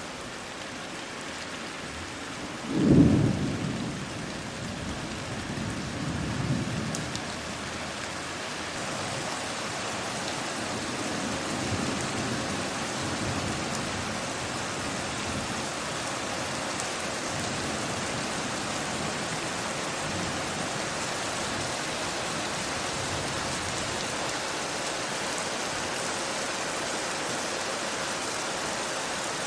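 Steady rain of a thunderstorm, with a sharp thunderclap about three seconds in that trails off into rumbling, a second weaker rumble a few seconds later and faint distant rumbles after that. The rain grows a little heavier partway through.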